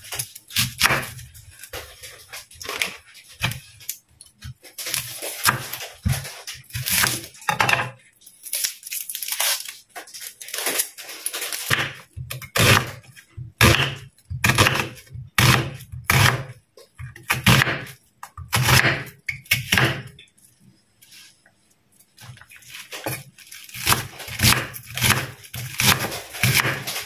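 Chef's knife slicing an onion on a wooden cutting board: a string of knife strokes knocking on the board, at times about two a second, with a short pause about two-thirds of the way through.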